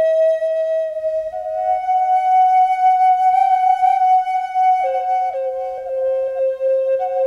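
Background music: a solo flute plays a slow melody of long held notes. Quick ornamental flicks between notes come in the last couple of seconds.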